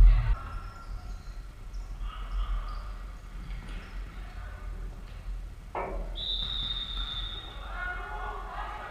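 Futsal game in a reverberant sports hall: a loud thud of the ball right at the start, then scattered players' calls and footfalls on the wooden floor, with a high, steady squeal of about a second some six seconds in.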